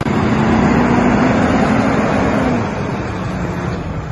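International 7400 dump truck's Navistar diesel engine running as the truck drives by. The engine note holds steady, then drops in pitch and eases a little in loudness about two and a half seconds in.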